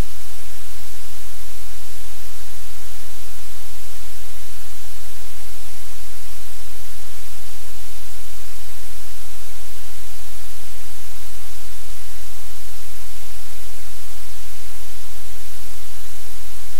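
Loud, steady static-like hiss with a constant low hum underneath, unchanging throughout.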